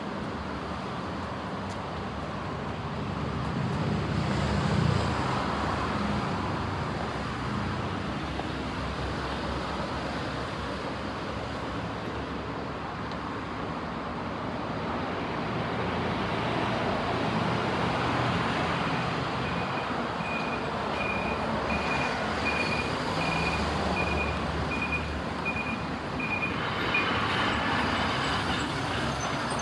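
Steady road-traffic noise of passing vehicles, swelling about four seconds in. From about twenty seconds in, a high-pitched beep repeats roughly one and a half times a second for about seven seconds, then stops.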